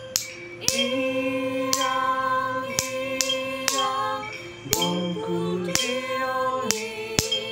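Several voices singing a song together in harmony, accompanied by a ukulele, with a sharp click marking the beat roughly once a second.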